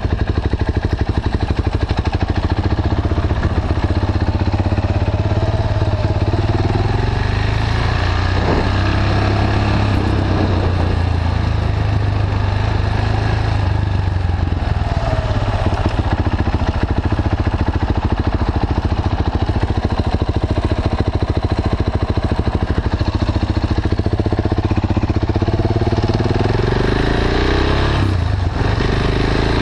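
KTM 690 Duke's single-cylinder engine, fitted with an Akrapovic slip-on and a catalyst-bypass pipe, running under light throttle at low speed. It pulses steadily, with the revs rising and falling a few times.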